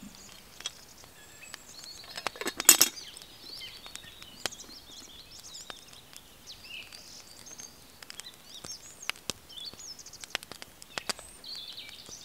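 Songbirds chirping and singing in a spring forest, with scattered sharp clicks and crackles throughout, and a short, loud clattering burst about two and a half seconds in.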